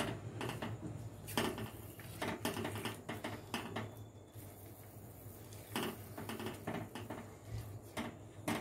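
Spatula stirring and scraping thick wheat-flour halwa around a metal kadhai, with irregular scrapes and light knocks against the pan and a quieter pause about halfway through. The flour roasted in ghee has had water added and is being stirred continuously on low flame to keep lumps from forming.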